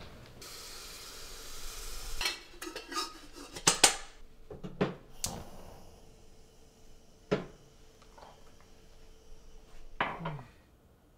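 A stainless steel stovetop kettle and dishes being handled: a soft hiss at first, then a run of metal and china clinks and clatters from about two to five seconds in, and single knocks about seven and ten seconds in.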